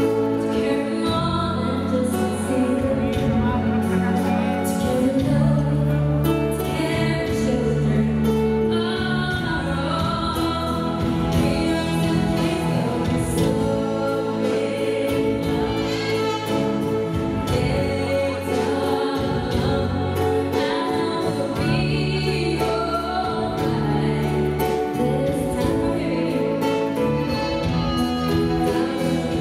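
A woman singing into a microphone over instrumental backing music, amplified through a PA, holding long notes.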